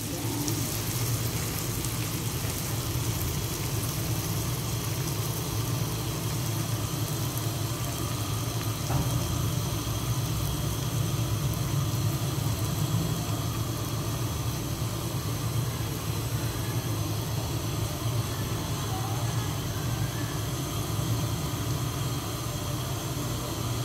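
A steady low hum with a faint hiss over it.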